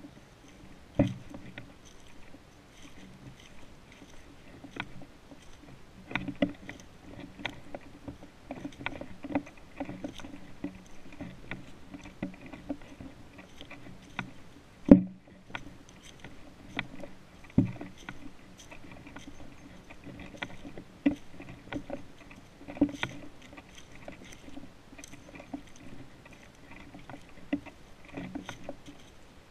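Footsteps walking through dry fallen leaves, irregular crunches and rustles, with a few sharper knocks, the loudest about halfway through.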